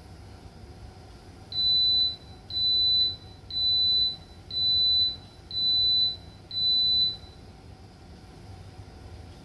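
Noxxa electric pressure cooker beeping six times, a high single-pitched beep about once a second, as its cooking countdown runs out and the program finishes.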